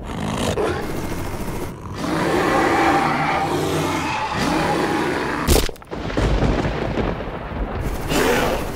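Dense layered film sound effects: a sustained rough roar and rumble, broken by one sharp impact hit about five and a half seconds in, the loudest moment.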